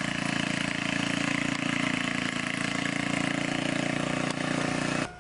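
Small gasoline engine of a walk-behind garden tiller running steadily as it works through the soil. It cuts off suddenly near the end.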